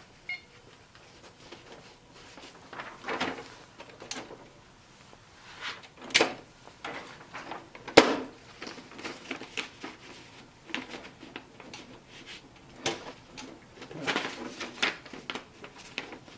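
Irregular clicks and clunks from a Xerox Memorywriter 6020 electronic typewriter being tried out after reassembly, with the sharpest knocks about six and eight seconds in and a flurry near the end.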